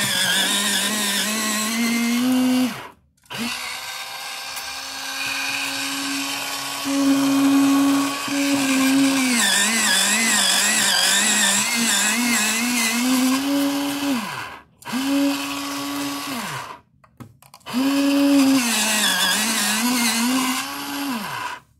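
X-ACTO Mighty Mite electric pencil sharpener's motor grinding a pencil. Its hum sags and recovers in pitch as the pencil is pressed against the blade. It stops briefly three times as the pencil is pulled back, then starts again, and cuts off near the end.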